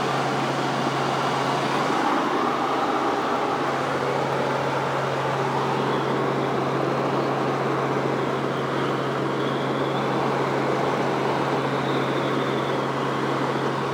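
Helicopter engine and rotor noise heard from inside the cabin in flight: a steady drone with a constant low hum under a wide hiss.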